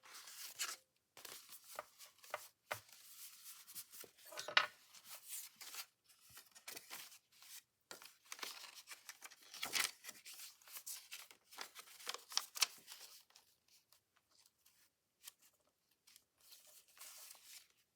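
Sheets of paper and cardstock rustling and scraping as they are handled and shifted, in short irregular bursts.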